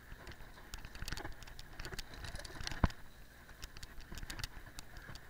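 Cyclocross bike ridden along a bumpy dirt trail: a low rumble from the ride, with many quick rattling clicks as the bike jolts over the ground and one sharp knock a little before three seconds in.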